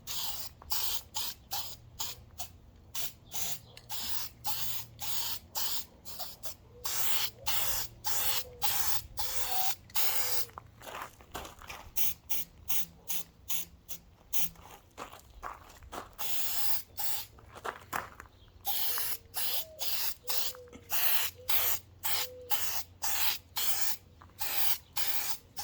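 Aerosol spray can of VHT high-temperature header paint spraying in short bursts, about two a second, with brief gaps between passes.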